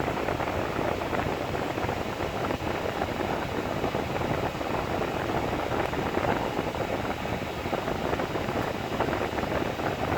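Car heater/AC blower fan running at its top speed, a steady rush of air from the dash vents, with the new fan switch now holding speed 4.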